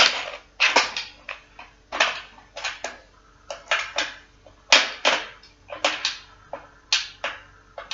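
A string of sharp, irregular knocks and clacks of hard objects striking, about two a second, as a stuck part is being forced loose without coming free. A faint steady hum lies underneath.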